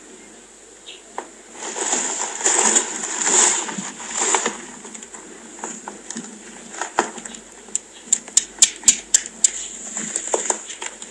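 Rustling and handling noises for a few seconds, then a quick run of sharp light clicks, about five a second, past the middle.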